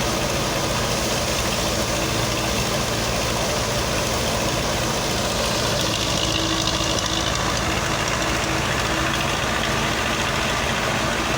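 Farm machinery engine running steadily at an even speed, with no change in pitch or load.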